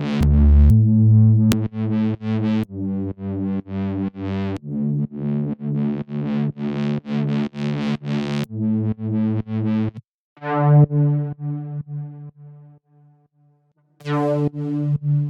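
Progressive house synthesizer chords played as short rhythmic stabs, about two or three a second, changing chord every couple of seconds. About ten seconds in the stabs stop; a single held chord rings out and fades, and another chord starts near the end.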